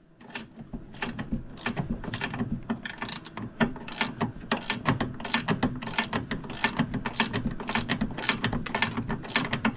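Hand ratchet wrench clicking as it backs out the top mounting bolt of a snowmobile's center suspension shock, in a steady run of sharp clicks about two to three a second.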